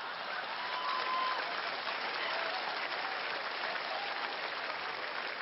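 Large theatre audience applauding steadily, with laughter and a few voices mixed in.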